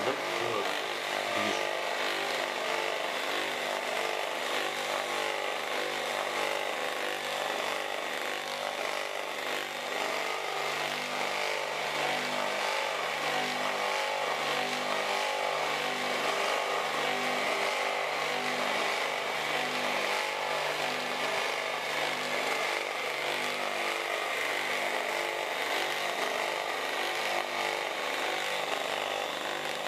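Electric motor coupled shaft-to-shaft to a generator, running steadily under the load of a bank of incandescent lamps. The running sound is continuous, with a slow, regular waver in its lower notes.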